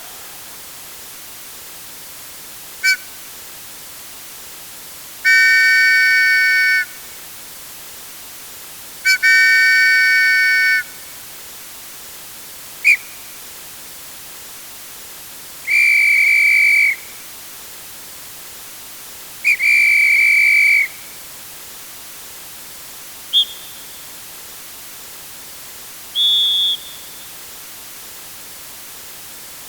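A run of sports whistles, blown one after another over a steady hiss, beginning about three seconds in. Short single toots alternate with longer blasts of a second or more. The different whistles sound at different pitches, and the last few are the highest and shortest.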